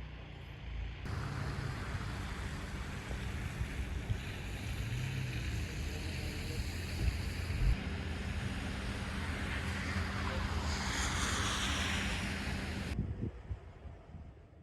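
Steady rushing outdoor noise of wind and vehicles, made of several edited shots that change abruptly about a second in, near the middle and shortly before the end, then fade out.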